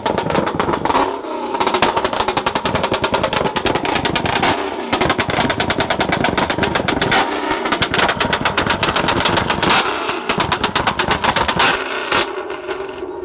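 Ford Mustang revved hard and held, its exhaust letting out rapid machine-gun strings of pops in about five stretches of a few seconds each with short breaks. It stops a little before the end.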